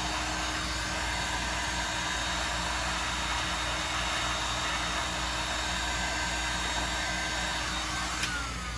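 Heat gun on its high setting blowing steadily, shrinking heat-shrink tubing over wire connectors. Near the end it is switched off with a click and its fan winds down in a falling whine.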